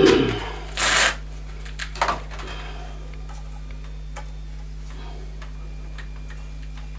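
Plastic scraping, rustling and clicking as a boiler's electronic circuit board is slid into its plastic control box, loudest in the first second, with a sharper click about two seconds in and only faint light ticks after that. A steady low hum runs underneath.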